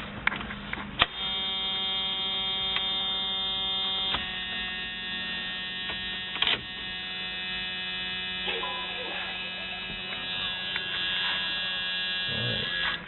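Strobe lights and their control box running during a test, giving a steady electrical hum made of several even tones. It starts with a click about a second in, and the mix of tones shifts around four seconds in.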